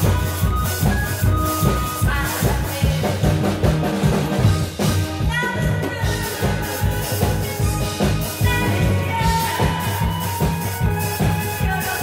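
A woman singing into a microphone over loud amplified backing music with a steady drum beat.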